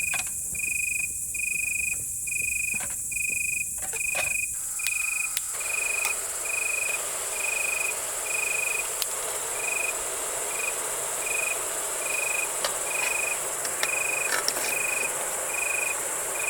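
A cricket chirping steadily outdoors at night, short even chirps at about one and a half a second, over a constant high insect trill. About five seconds in, a steady rushing noise joins it, with a few faint clicks.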